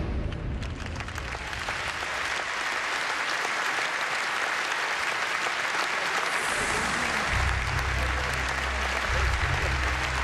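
Large audience applauding, building over the first couple of seconds and then holding steady. A low rumble joins about seven seconds in.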